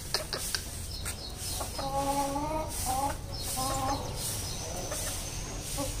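Chicken clucking, a few short pitched calls about two to four seconds in.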